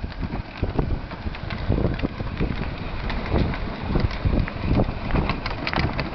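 Hard plastic wheels of a child's battery-powered Barbie ride-on Jeep rolling over rough asphalt: an uneven rattling clatter of small knocks, with wind noise on the microphone.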